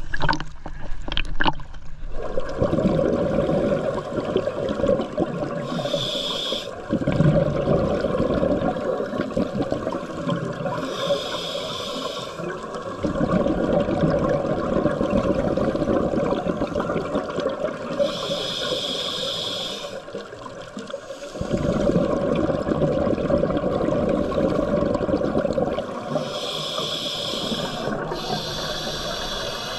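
Scuba diver breathing through a regulator underwater: a short hissing inhale four times, about every six to eight seconds, with long stretches of bubbling exhaust between them.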